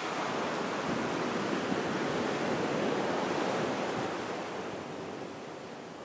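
Ocean surf breaking and washing up the sand around rocks, a steady rush of water that swells over the first few seconds and then slowly fades.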